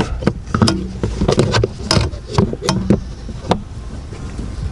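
Irregular plastic clicks and knocks as a new HVAC blend door actuator is pushed into place and lined up into its clip grooves under a car's dashboard, over a low steady hum.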